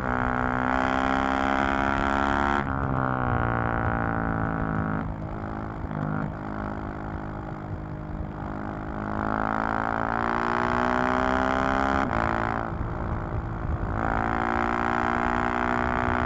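KTM 690 SMC-R's single-cylinder engine and exhaust under riding. The pitch climbs and breaks several times, at changes up through the gears, sags as the throttle is eased for a few seconds in the middle, then rises again under acceleration.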